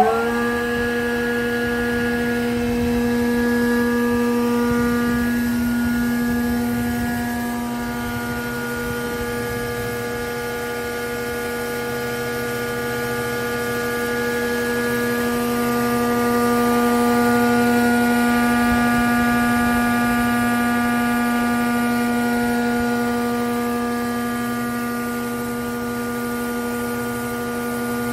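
Aderna 30 jointer-planer with its 30 cm two-knife cutterhead running freely at full speed after start-up, no wood being fed: a steady machine hum with a whine above it, swelling slightly in loudness now and then.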